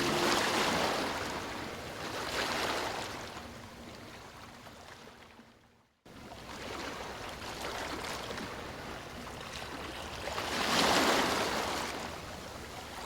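Ocean waves washing onto a beach, the surf swelling and receding in slow surges, loudest about a second in, near 2.5 s and again about 11 s in. The sound fades out to silence near the middle and fades back in.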